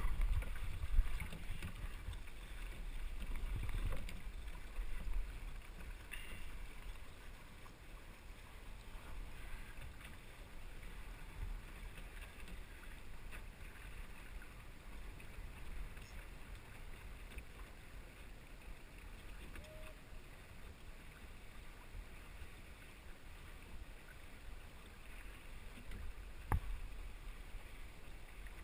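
Wind buffeting the microphone and water washing along the hull of a small sailing dinghy under way. The wind noise is heavier in the first few seconds, and there is one sharp knock near the end.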